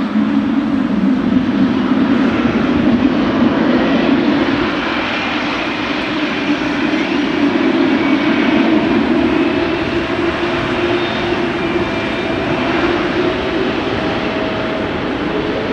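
Boeing 777 freighter's GE90 jet engines running at low power while the aircraft turns on the runway: a steady jet hum with a whine that starts to rise in pitch near the end.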